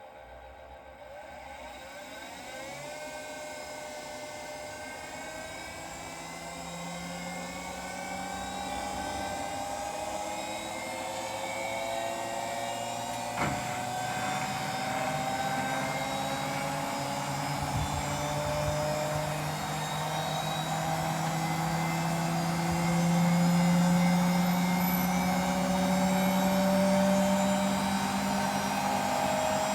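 Hotpoint WMFUG942 washing machine's motor gradually speeding up, with a whine that climbs in pitch and grows louder throughout, and a single sharp click about halfway. The noise comes from bad motor bearings.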